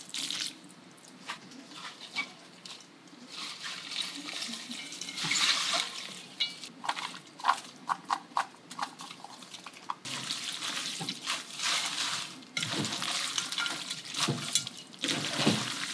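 Hands mixing buckwheat noodles in a wet chili sauce in a stainless steel bowl, with wet squelching and a run of sharp clicks about halfway through, then rustling as shredded salad vegetables are tossed in.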